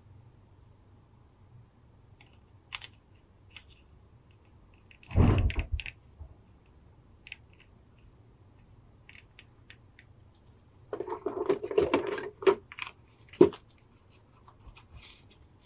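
Hard plastic clicks, taps and rubbing as a PVC figure's parts are handled against a clear plastic blister tray. There is a louder knock and rustle about five seconds in, then a run of clicks and scraping from about eleven seconds that ends in one sharp click.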